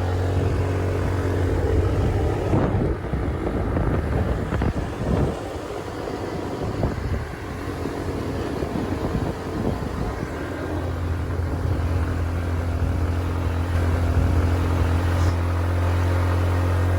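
Small motor scooter engine running steadily under load, climbing a very steep road with two riders aboard, near the limit of what it can manage. The engine tone is strongest at the start and again over the last part, with a rougher rushing noise in between.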